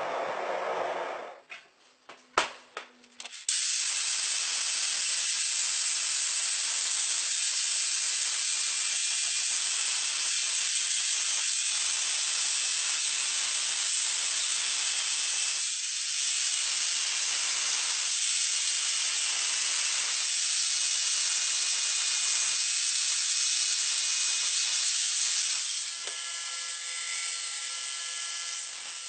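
Hot steel hissing as it is quenched in a tank, cutting off about a second and a half in. After a short quiet gap with a few sharp clicks, a long, steady high hiss follows, and near the end a belt grinder starts running.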